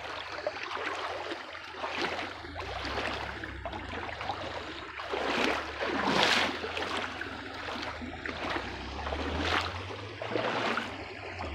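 Shallow creek water rushing over rocks, with louder splashing swishes from wading, the biggest about five to six seconds in and a couple more near the end.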